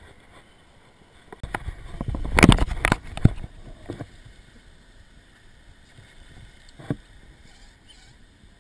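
A cluster of knocks and thumps with a low rumble, from about one and a half to three and a half seconds in, then one sharper knock near seven seconds. A faint steady hiss of river water lies underneath.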